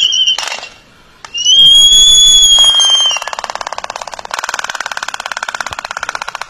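A pair of Laysan albatrosses in their courtship dance: a long whistled call, arching slightly in pitch, about a second and a half in, then a fast, rattling clatter of bill-clapping that runs from about three seconds in.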